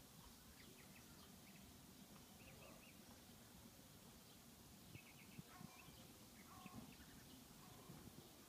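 Near silence: faint background hiss with scattered faint, short bird chirps and a few soft ticks about five to seven seconds in.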